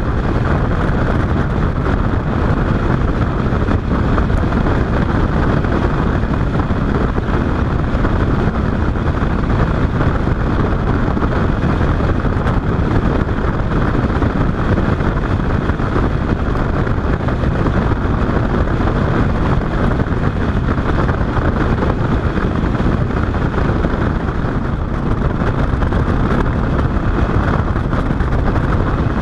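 Bass boat running at speed under outboard power: a steady, loud rush of wind on the microphone mixed with the outboard motor and water rushing past the hull.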